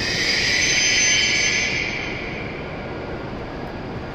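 E7-series Shinkansen train coming to a stop at the platform, giving a sudden loud hiss of released air that fades away over about two seconds.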